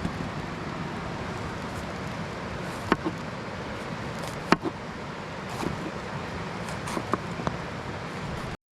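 Steady rush of a mountain stream with a few sharp pops and crackles from a campfire of burning sticks. The sound cuts out for a moment near the end.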